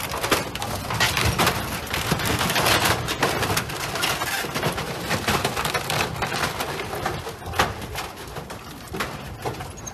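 Wooden floating dock cracking and splintering as it is crushed under the bow of a large yacht: a dense run of sharp cracks and creaks, with one louder crack about seven and a half seconds in.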